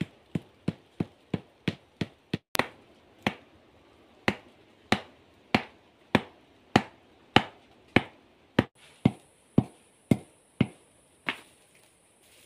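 Machete chopping at the base of a thin green bamboo stalk: a run of sharp chops, quick at first at about three a second, then slower at about one every 0.6 seconds, stopping shortly before the end.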